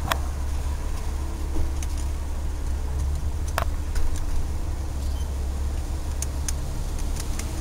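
Low, steady car engine rumble heard from inside a car's cabin, with a few short sharp clicks scattered through it.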